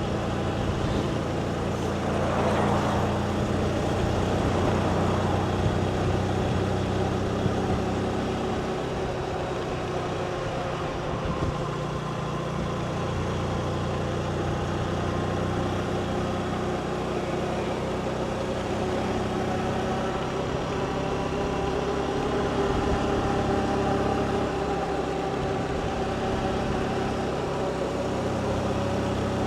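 Motorbike engine running at a steady cruise, with road and wind noise, its pitch drifting slowly up and down; a brief louder rush of noise about two seconds in.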